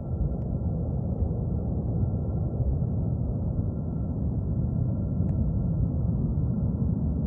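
Airbus A330 jet engines at taxi power: a steady low rumble with a faint high whine held throughout, heard with wind buffeting the microphone.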